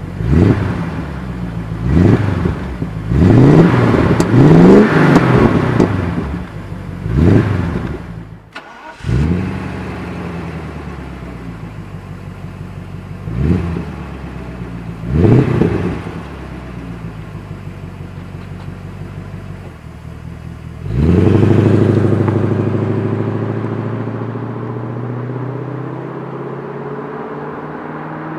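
Mercedes-Benz W126 500SEC's 5.0-litre V8 through an MEC Design stainless-steel exhaust with rear and middle mufflers in its loud 'Earthquake' version: idling with a series of quick throttle revs, then pulling away and accelerating, the note rising and then fading as the car moves off.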